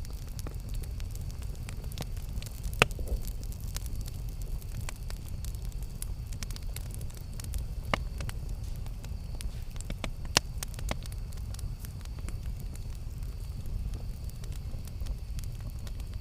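Campfire burning with a steady low rumble and scattered crackles and pops, the sharpest snaps about 3 and 10 seconds in.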